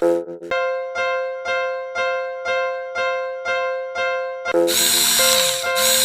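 Railroad crossing warning bell ringing, about two electronic dings a second, each fading before the next. About four and a half seconds in, a loud harsh rushing noise starts over it while the bell keeps ringing.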